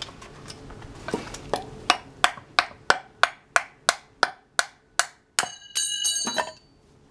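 Reverse chopping: a heavy piece of wood is struck again and again down onto the thin edge of a W2 steel knife, making sharp, even wooden knocks about three a second. A louder hit comes near the end, followed by a brief ringing clatter.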